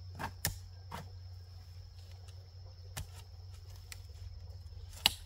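Steady high-pitched chirring of crickets with a low hum beneath, broken by four sharp, irregularly spaced knocks, the last the loudest.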